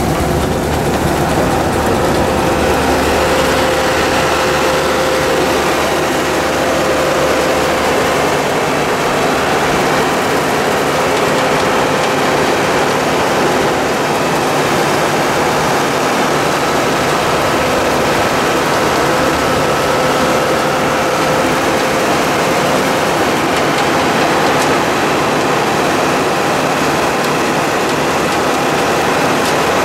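Side-mount blueberry harvester working a row of bushes: a tractor engine runs steadily under a dense, even noise from the shaker rods beating the bushes. The sound holds level throughout, with a faint steady whine in the middle.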